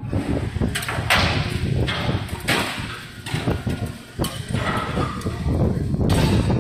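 A ship's deck crane is hoisting a steel scrap skip: a steady low machinery rumble, with repeated short bursts of hiss and knocks of metal.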